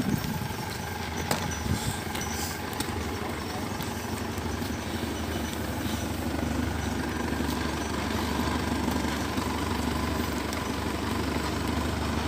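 An engine running steadily at idle, a constant low hum, with a few short knocks in the first two seconds.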